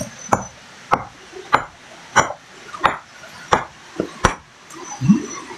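Small hand hammer striking rock, eight sharp metallic clacks about two-thirds of a second apart, the last two close together, chipping at the stone's surface.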